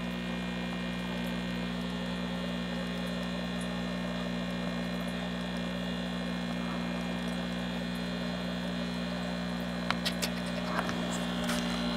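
Supra aquarium air pump humming steadily as it feeds the air-bubble LED lamp. The hum is a low, even drone with several steady overtones, and a few faint clicks come near the end.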